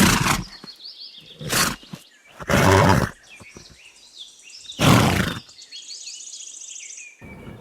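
Horse snorting: four loud, noisy snorts spaced a second or two apart, with small birds chirping faintly in the background.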